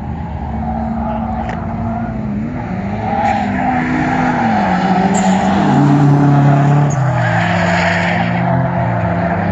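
Drift car engine revving up and down as the car slides, with tyres squealing; it grows louder about three seconds in.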